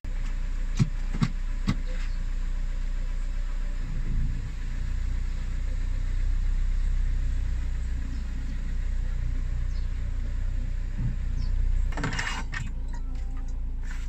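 Car engine idling, heard from inside the cabin as a steady low hum. Three sharp clicks come in the first two seconds, and a brief rustle about twelve seconds in.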